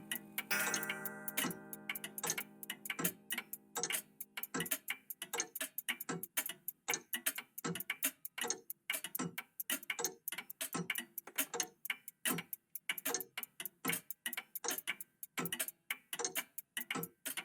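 Several old clocks, a cuckoo clock among them, ticking together in an uneven, overlapping rhythm of about four to five ticks a second. A ringing chime fades away over the first few seconds.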